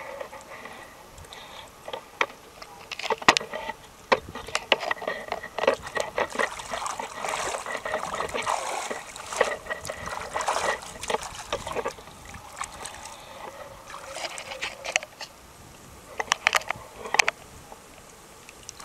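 Water splashing and sloshing in irregular bursts, with many short sharp splashes, busiest through the middle and again briefly near the end.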